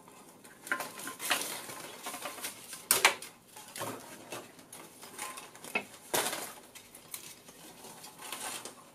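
Handling noise from a missile guidance-computer board assembly being turned in the hands: its flex cables and metal-foil ribbon rustle and crinkle, with irregular small clicks and knocks. The sharpest click comes about three seconds in.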